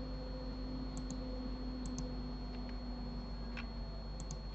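Computer mouse and keyboard clicks: three quick double clicks, about a second in, two seconds in and near the end, with a fainter single click between them, over a steady low electrical hum.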